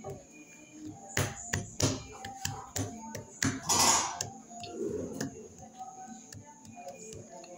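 Scattered light taps and clicks, with a short rustling hiss about four seconds in, over faint background music.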